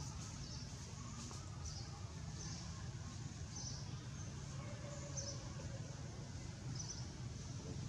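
Short, high chirps repeating about once a second over a steady low background rumble.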